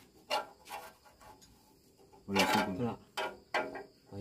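Metal hand tools clicking and scraping against a stopped tractor engine's pulley and fittings, a few separate knocks, with a man's voice calling out briefly a little over two seconds in.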